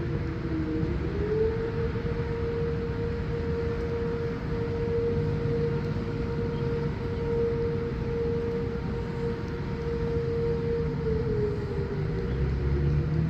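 Outdoor warning siren sounding for a severe thunderstorm warning: one long steady tone whose pitch dips and winds back up about a second in, then slowly falls away near the end. A low rumble runs beneath it.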